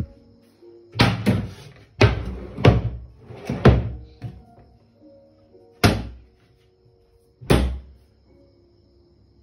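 Drawers and hinged doors of a laminated wooden cabinet being pushed shut, giving a run of wooden thuds through the first four seconds and two more about six and seven and a half seconds in. Faint background music plays underneath.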